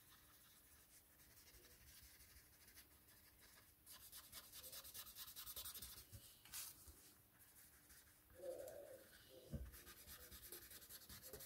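Faint scratchy rubbing of a paper blending stump worked back and forth over coloured pencil on card, blending the colour. The strokes come in spells and are clearest around the middle and near the end.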